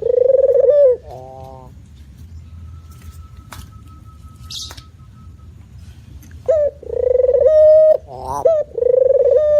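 Spotted dove cooing: a phrase of low, mellow coos, then a pause of about five seconds, then the next phrase starting about six and a half seconds in.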